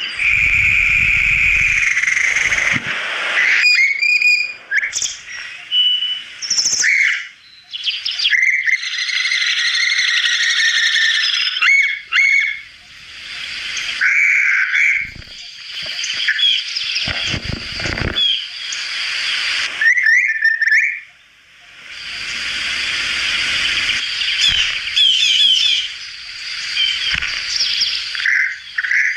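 Birds chirping and calling in a dense high chorus of short trills and whistles, which breaks off and starts again several times.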